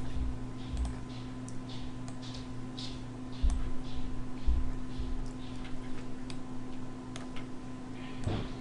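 Irregular light clicking of a computer mouse, a few clicks a second, over a steady low electrical hum.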